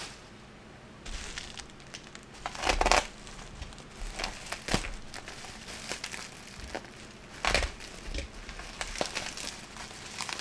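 Plastic packaging crinkling and crackling as it is handled, in irregular bursts with louder crackles about three seconds in and again about seven and a half seconds in.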